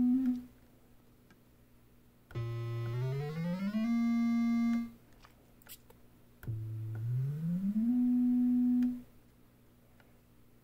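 Korg NTS-1 digital synthesizer playing two single notes on different oscillator types. Each note slides up about an octave, holds for about a second, then stops. The first sounds bright with many overtones and the second is purer and softer-edged.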